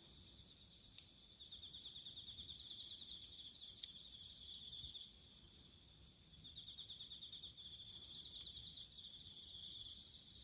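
Insects trilling in a steady high drone, with two longer stretches of louder, fast pulsing chirps. A few faint sharp clicks come through.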